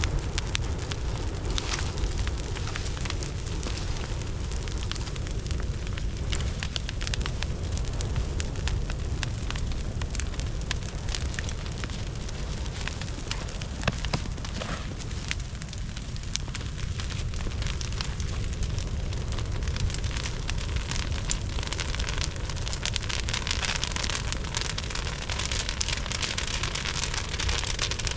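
Burning brush pile crackling, with many sharp pops over a steady low rumble.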